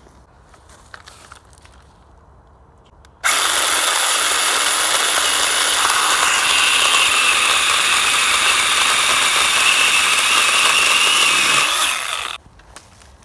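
Ryobi One+ 18 V cordless pole saw with an 8-inch chain starting about three seconds in and cutting through a thick branch. It runs loud and steady for about nine seconds, then stops suddenly.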